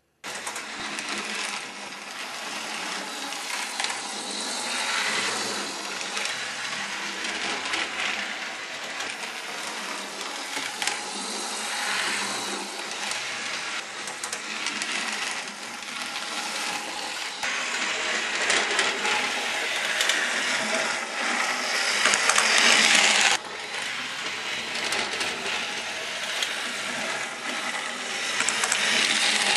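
Small electric motor and wheels of an On30 model tram whirring on the track, with fine clicking, heard close to the microphone. It starts abruptly, grows louder, then drops sharply about three quarters of the way through and runs on more quietly.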